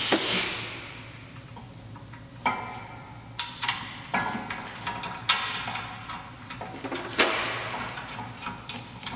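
A VW Polo 6R's rear brake caliper being fitted by hand over the disc and its mounting bracket: a handful of sharp metal knocks and clinks spread over several seconds, some ringing briefly.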